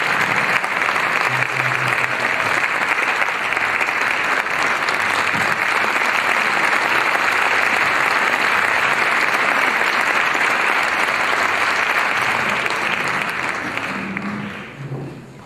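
Concert audience applauding steadily, the applause dying away near the end.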